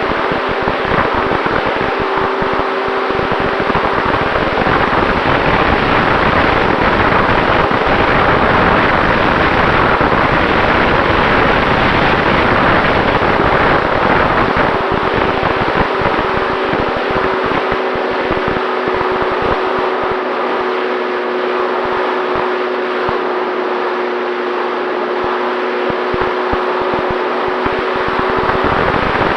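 Onboard sound of an FX-79 flying-wing model plane in flight: a steady rush of wind and airflow over the airframe, with the steady hum of its electric pusher motor. The hum drops out about three seconds in and comes back about halfway through.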